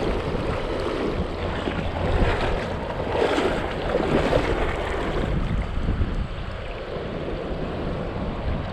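Shallow mountain creek rushing over rocks in a riffle, with wind buffeting the microphone. The noise is steady, swelling slightly a few seconds in.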